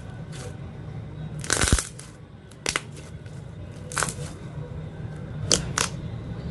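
Slime being squeezed and stretched by hand: a series of sharp pops and squelches, the biggest cluster about one and a half seconds in, then single pops every second or so.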